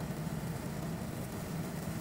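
Pork ribs simmering in sauce in a wok, the liquid bubbling over a steady low hum.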